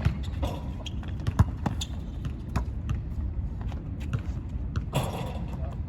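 A basketball bouncing on a court: a handful of scattered, irregular thuds over a steady low background rumble.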